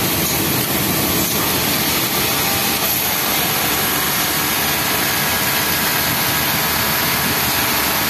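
Steady, even din of industrial sewing machines running, including a Yamato flatlock machine sewing the bottom hem of a T-shirt.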